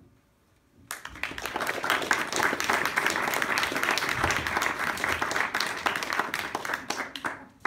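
Audience applauding, a dense clatter of many hands clapping that starts about a second in and dies away near the end.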